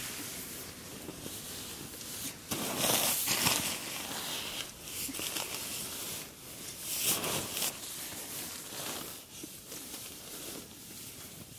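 Rustling and swishing of a Marmot CWM down sleeping bag's shell fabric as it is handled, pushed down and compressed for packing. The rustling comes in uneven bursts, loudest about three seconds in and again about seven seconds in.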